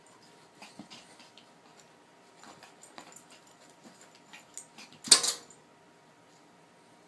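A corgi makes one short, loud sound about five seconds in, after several faint clicks and scuffles.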